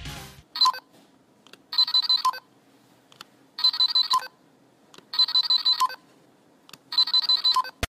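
Bandai Dragon Ball Saiyan Scouter toy playing its electronic beeping sound effect from its earpiece speaker: four short bursts of rapid beeps, each about half a second long and about a second and a half apart, after a brief blip near the start.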